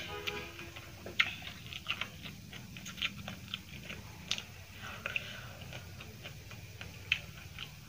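Eating by hand: fingers mixing white rice with egg curry on a plate, and chewing, giving irregular wet, sticky clicks and smacks.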